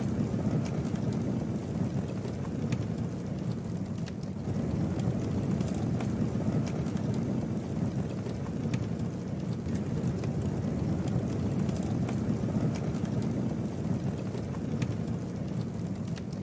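Campfire burning: a steady, flickering rush of flames with scattered sharp crackles and pops from the burning wood.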